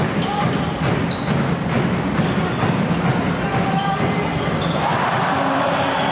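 Basketball being dribbled on a hardwood court, a string of short bounces, over the murmur of a crowd in the hall. The crowd noise swells in the last second or so.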